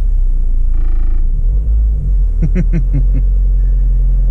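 Low steady rumble inside a parked car's cabin, with a short squeaky tone about a second in and a brief voice-like sound around the middle.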